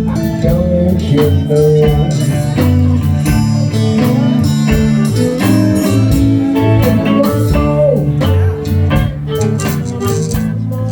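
Blues band playing an instrumental passage: guitar notes, some bending in pitch, over a bass line and a steady beat.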